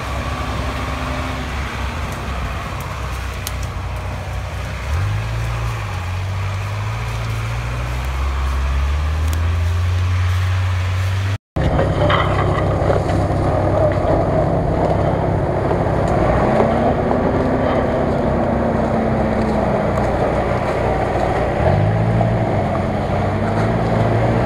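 GAZ-66 truck engine working hard off-road, a steady low drone that revs up with rising pitch about five seconds in and again near the end. It drops out for an instant about halfway, and a rougher rushing noise runs under the engine after that.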